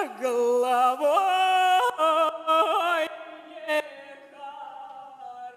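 A woman's solo voice singing a Russian folk song, holding long notes with vibrato and gliding between pitches. About three seconds in the singing turns much softer.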